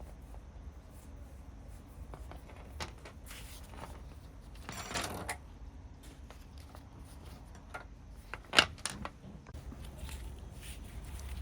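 Scattered handling noises: light clicks and taps, a brief scraping rustle about five seconds in, and one sharp click near the end.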